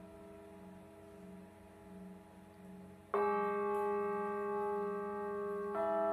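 Hanging metal bell plates struck with a padded mallet: a sudden bright strike about three seconds in and another near the end, each ringing on in several overlapping tones. Before the first strike, the fading ring of earlier notes hums with a slow waver.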